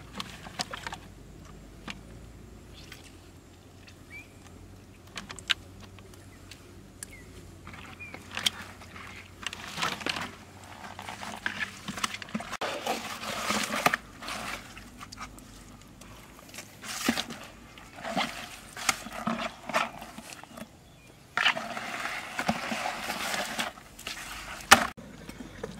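Water sloshing and splashing in a plastic bucket as live fish are handled and tipped into it, in several irregular bursts with small knocks and clicks between.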